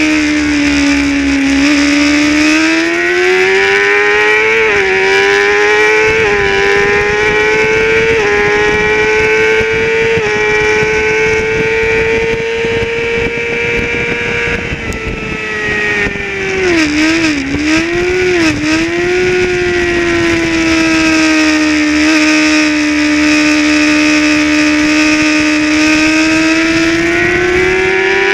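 Racing motorcycle engine heard from on board at high revs, its pitch climbing with short breaks at each upshift. About 17 seconds in it drops and jumps back twice as the rider shifts down for a corner, then holds a steady high note, with wind rushing past.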